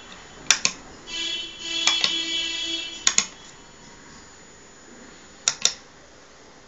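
Tactile push-buttons on a circuit-board keypad clicking in three quick pairs, press and release, each time the display is changed. Between the first and second pairs a steady tone with many overtones sounds for about two seconds.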